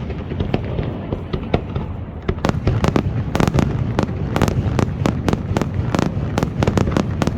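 Fireworks display: a rapid, irregular string of sharp cracks and bangs from bursting shells over a continuous low rumble, growing denser from about two and a half seconds in.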